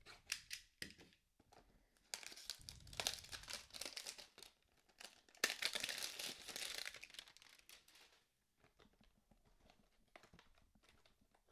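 Packaging of a baseball-card hanger box being torn open and crinkled by hand, in two longer tearing stretches with sharp crackles before and fainter crinkling after.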